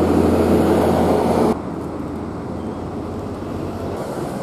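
Rumble of thunder during a city thunderstorm that cuts off abruptly about a second and a half in, leaving a steady, quieter wash of city traffic noise with a low hum.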